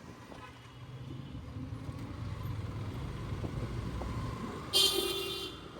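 Motorcycle engine running underway, a steady low rumble with road noise. A short, shrill vehicle horn sounds near the end.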